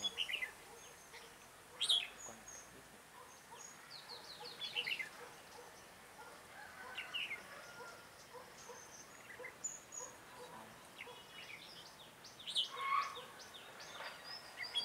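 Red-whiskered bulbuls calling: short bursts of quick, high chirping notes every few seconds, over a faint background of other birds.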